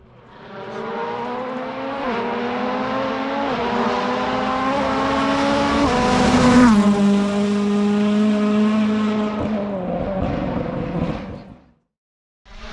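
Rally car approaching flat out, its engine climbing in pitch and stepping down at each upshift. It passes close with a sudden drop in pitch, then runs on at a steady lower note while fading away. The sound cuts off shortly before the end.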